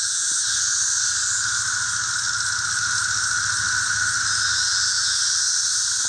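Dense, loud chorus of 17-year periodical cicadas from a mass emergence: a steady, unbroken buzzing with a higher hiss layered above it.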